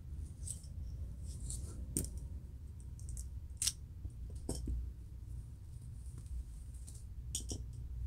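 Fingernails scratching and picking at a dry, flaky scalp between locs, lifting dandruff: short, irregular scratchy strokes and crackles, with a few sharper clicks, over a low steady hum.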